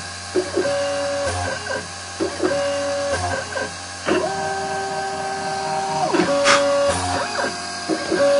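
Mini CNC stepper motors whining through short repeated moves while routing a circuit board. Each move is a steady tone that glides up as it starts and down as it stops, about every two seconds, with one longer move at a higher pitch from about four to six seconds, over a steady hum.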